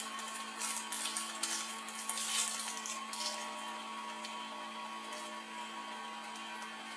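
Thin plastic packaging crinkling and rustling in a few short bursts in the first half as a small camera accessory is unwrapped and handled, over a steady low hum.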